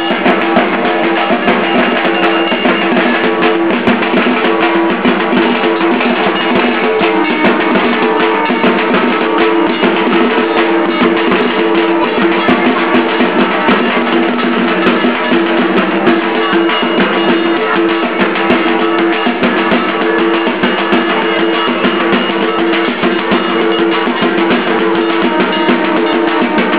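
Loud drum-led music playing without a break, with steady drum strokes over ringing pitched tones.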